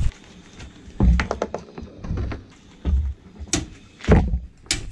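A car tyre presses onto a row of frozen ice lollies on a plastic board, giving a series of dull thunks and sharp cracks, the loudest about four seconds in.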